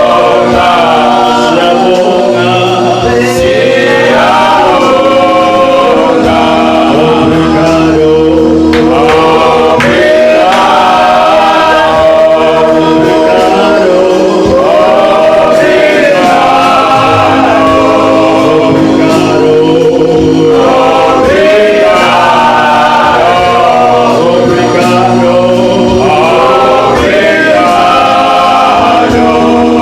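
A choir singing a gospel song, with men's voices among them, continuing without a break.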